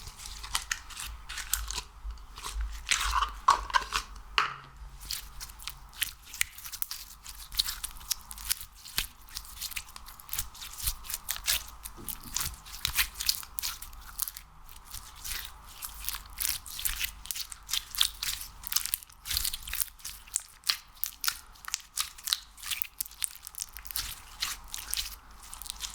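Hands working slime and wax close to the microphone: a dense, irregular run of small sticky clicks and crackles, several a second.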